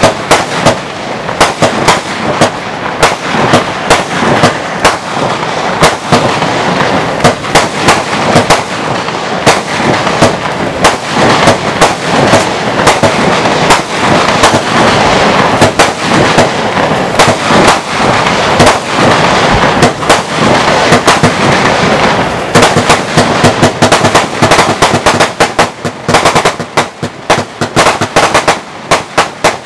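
Lesli Blast Off 64-shot 20 mm firework battery firing: a rapid, continuous run of sharp shots as the tubes launch and the shells burst. The shots come thicker and faster near the end.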